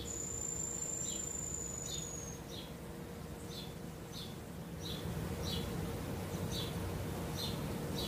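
Insects chirping: short high chirps repeating roughly once a second over a steady low background. A thin, high, steady whistle runs for about the first two seconds.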